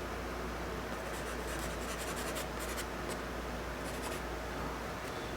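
Charcoal stick scratching and rubbing across drawing paper in short, irregular sketching strokes, over a low steady hum.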